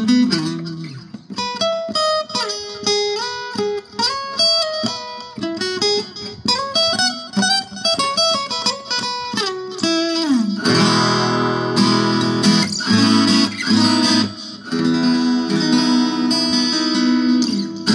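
1976 Yamaha FG-251 steel-string acoustic guitar being played: a single-note melody for the first half, then fuller ringing chords with bass notes from about ten seconds in.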